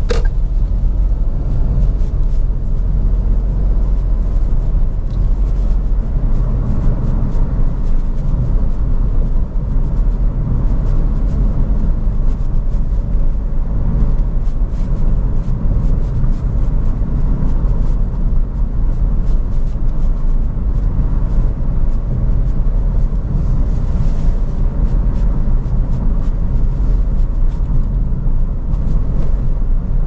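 Car driving at a steady pace: continuous low road and engine rumble.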